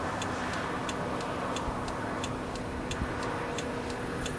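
A parked vehicle's hazard-light flasher ticking evenly, about one and a half times a second, over the steady hum of the idling engine.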